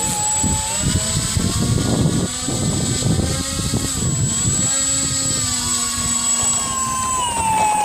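Electric motor and propeller of a radio-controlled flying-lawnmower model plane whining under power. The pitch wavers with the throttle, dipping and recovering midway and falling near the end as power is eased off, over a rough low rumble.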